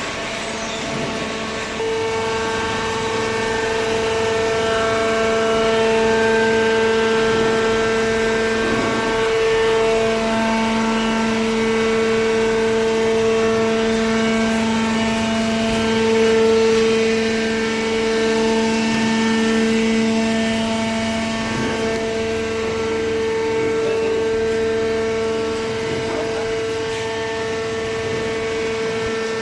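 Hydraulic cardboard baler's power unit running, a steady droning whine that gets louder about two seconds in and holds, swelling slightly now and then as the press works under load.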